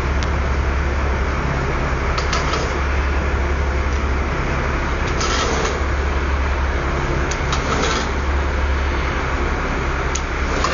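Crane truck's engine running steadily as its boom is lowered, with a few short hisses over the low engine hum.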